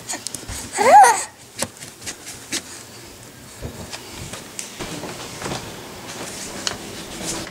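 A baby's single high squeal about a second in, its pitch rising then falling, followed by faint clicks.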